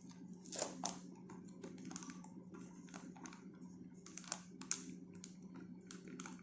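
Foil packet of gulab jamun mix crinkling and being shaken as the powder is tipped out onto a steel plate: faint, irregular crackles and clicks. A steady low hum runs underneath.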